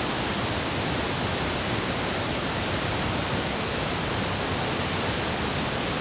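A waterfall's falling water rushing in a steady, unbroken wash of noise.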